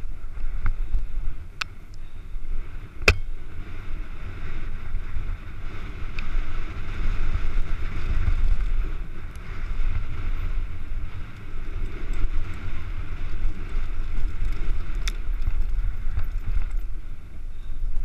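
Wind buffeting a helmet-mounted camera during a fast mountain-bike descent, with the rumble and rattle of the bike's tyres on dry dirt and gravel. A few sharp knocks from the bike over bumps, the loudest about three seconds in.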